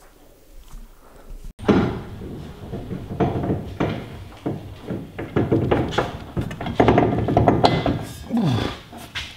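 Irregular metal clunks and knocks from tools and parts being handled under a car on a lift during drivetrain work. They start abruptly after a quiet first second and a half, with a brief falling tone near the end.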